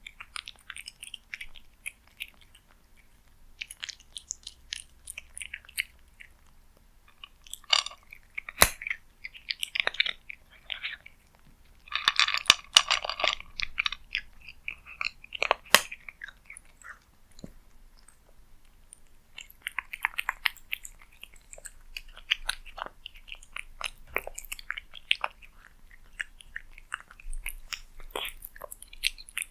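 Cat chewing food close up, in irregular clusters of small clicks, with a dense spell of chewing about twelve seconds in and a few sharper clicks.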